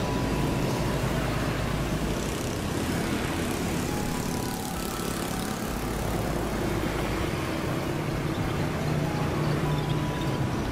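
Street traffic: cars and motorbikes passing close by in a steady stream of engine and tyre noise.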